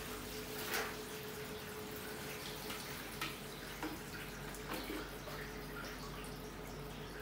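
Water trickling and dripping off the top of a server rack cabinet into the metal tray beneath, with a few small splashes, over a steady hum.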